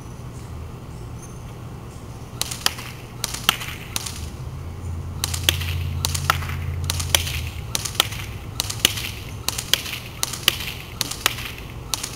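Classic Army MP5A2 electric airsoft gun firing single shots on semi-automatic, a sharp crack every third to half second or so, starting about two seconds in. A low rumble rises and fades in the middle.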